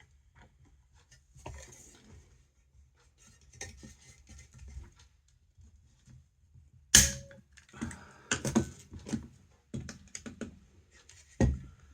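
Hand pop-rivet tool being worked, with small metal clicks. About seven seconds in comes one loud sharp snap as the rivet's mandrel breaks off and the rivet sets. Clicks and clinks of the tool and the spent mandrel follow.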